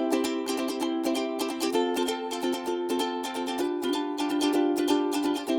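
Ukulele strummed in a quick, even rhythm, the chord changing about every two seconds.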